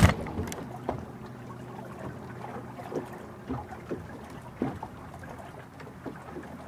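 Water lapping against a bass boat's hull, with a few light scattered knocks on the boat, opening with a sharp thump.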